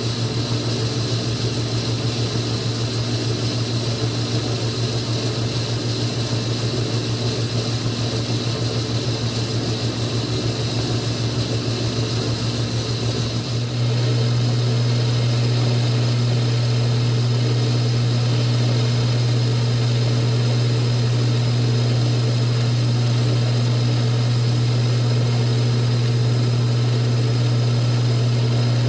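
Metal lathe running steadily with a strong low hum while turning down a chuck backplate's register. The sound steps up in level about fourteen seconds in and holds there.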